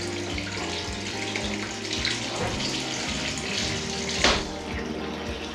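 Water rushing and gurgling as a full bath drains through a newly fitted pop-up waste, with one sharp knock about four seconds in. Soft background music plays underneath.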